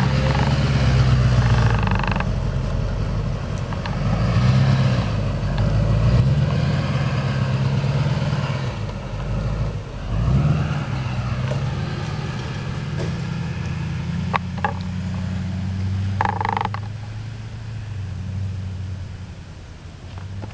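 Pickup truck engine running under load as it drags a tree, its pitch rising and falling as the driver works the throttle. A short squeak comes about sixteen seconds in.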